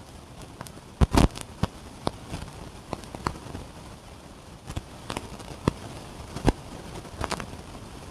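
A series of irregular sharp clicks and knocks, about a dozen, the loudest a quick double knock about a second in.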